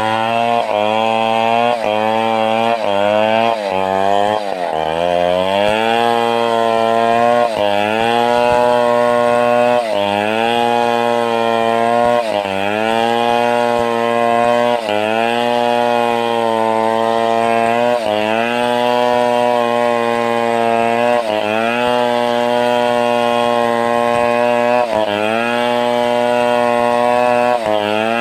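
Stihl 070 two-stroke chainsaw running at high revs under load, its pitch sagging and recovering every two to three seconds, with a deeper dip about four seconds in. This is the saw working through timber being ripped into battens.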